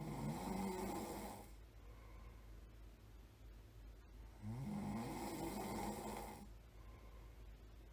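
A person snoring, a slow regular snore about every four and a half seconds. One snore trails off in the first second and a half, and another begins about four and a half seconds in and lasts about two seconds. Each starts with a rising tone.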